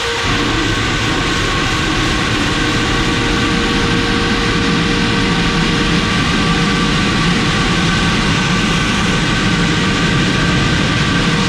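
Combine harvester running while shelling corn: a steady, loud engine and threshing drone with several held steady tones.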